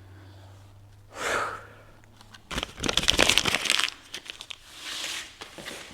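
Self-adhesive hook-and-loop (Velcro) strip being pulled slowly, a crackling tear lasting just over a second in the middle, with softer rustles before and after.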